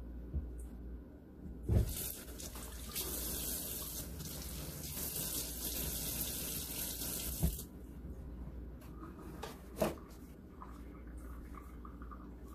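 Kitchen tap running into a stainless steel sink. The water comes on about two seconds in, runs steadily for about six seconds, then shuts off, and a single knock follows a couple of seconds later.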